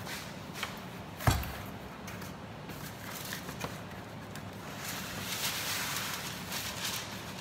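A cardboard box of baking paper knocks once on a stainless-steel worktop about a second in. Over the second half, a sheet of baking paper rustles and crinkles as it is pulled out of the box.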